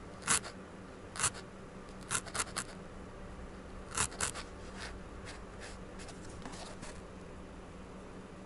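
A felting needle stabbing wool fibres into a foam felting pad: a string of short, sharp stabs, the strongest in the first four and a half seconds and fainter ones after.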